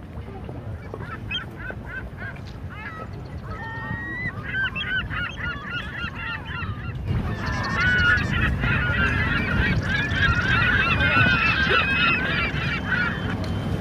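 A flock of birds calling, many short overlapping chirps and honks over a steady low rumble. The calls get denser and louder about halfway through and stop shortly before the end.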